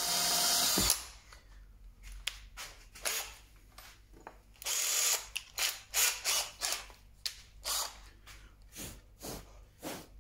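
Cordless drill running for about a second as a 1/8-inch pilot bit breaks through plywood, then a string of short bursts of the motor, some with a ratcheting chuck, as the bit in the keyless chuck is handled.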